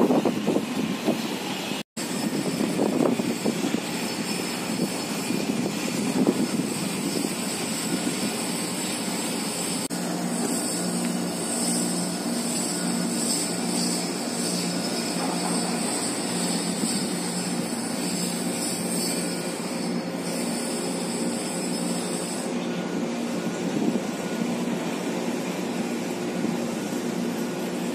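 Steady outdoor vehicle-like noise, with a pulsing low hum joining in from about ten seconds in for some twelve seconds.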